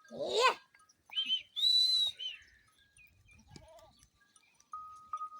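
Goats bleating: a loud, wavering bleat at the start, then shorter, higher-pitched cries a second or so later and a faint call after that.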